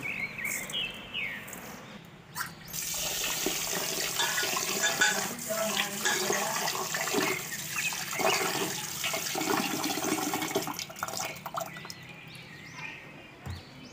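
Tap water pouring into an aluminium pot of raw rice while a hand swishes the grains around to wash them. The running water starts a couple of seconds in and stops near the end.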